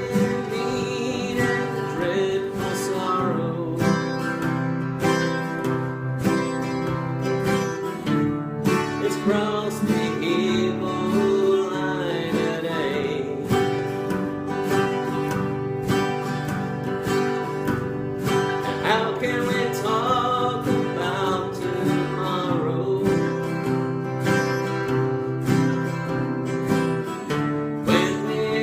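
Acoustic guitar music in a country style, strummed and picked steadily.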